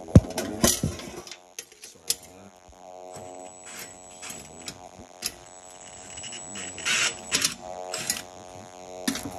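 Screws being driven slowly into a gas oven igniter's metal bracket on the burner: scattered metallic clicks and light scrapes from the driver and bracket, a few sharper knocks near the start and later on, over a steady low hum.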